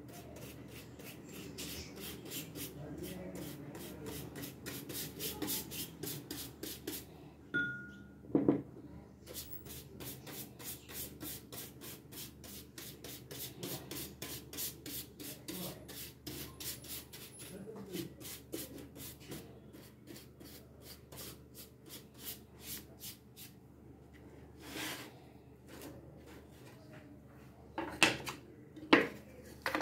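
A brush scrubbing back and forth over plywood cutouts, quick even strokes about three or four a second that pause now and then. A few sharper knocks, loudest near the end, as wooden pieces are moved on the table.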